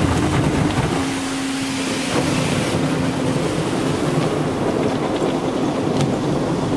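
Automatic car wash heard from inside the minivan: cloth brush strips slapping and rubbing across the windshield amid spraying water, over a steady motor hum.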